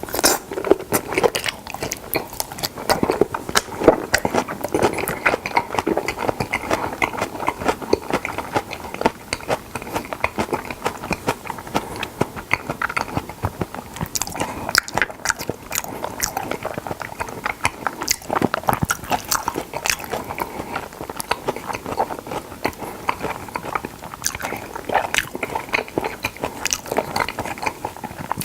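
Close-miked wet chewing and biting of salmon, a steady run of small clicks and moist crackles from the mouth.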